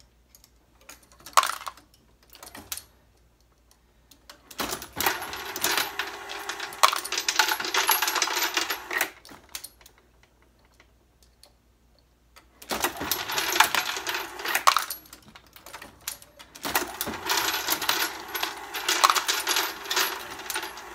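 Loose 9mm brass cases clattering and clinking in a running Hornady Lock-N-Load case feeder, with a steady motor hum underneath. The feeder runs in three stretches of several seconds with quieter gaps between them. A couple of single metallic clicks come near the start, from the Hornady AP progressive press.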